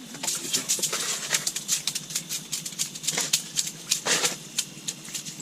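A freshly landed fish flopping and slapping on the ice, giving a quick, irregular clatter of sharp slaps that grows denser near the middle and then eases off.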